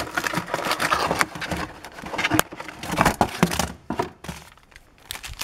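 A snack cracker box and its wrapper being handled and opened: irregular rustling and crinkling with small clicks and taps, dying down a little before the end.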